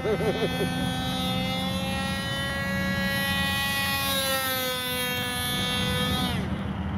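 Radio-controlled model airplane engine running at high speed with a steady high-pitched whine, its pitch dropping sharply near the end as the plane flies past low. A lower steady drone runs underneath.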